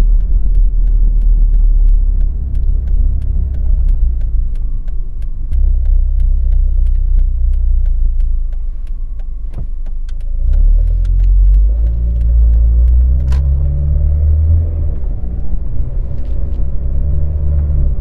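Low rumble of a car heard from inside the cabin, with a regular ticking through the first half that fits a turn signal running before a right turn at a stop sign. About ten seconds in, the engine note rises as the car pulls away and speeds up.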